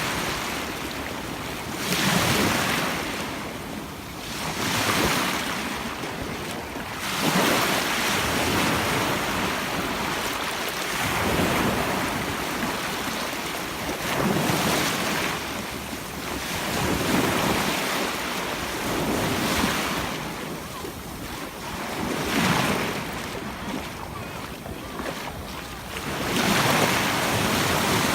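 Sea surf washing onto a beach, waves breaking and surging in one after another every few seconds, with wind buffeting the microphone.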